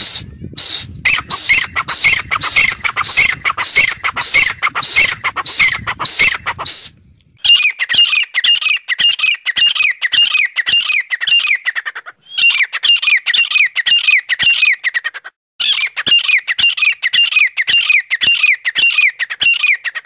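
Grey francolin calling: loud, high, shrill notes repeated two to three times a second in long runs, broken by three short pauses. A low rumble lies under the first run.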